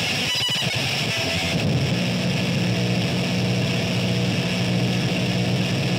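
Steady low amplifier drone left ringing from the guitars and bass after a live metal song stops, firming into an even hum about two seconds in, over a festival crowd cheering.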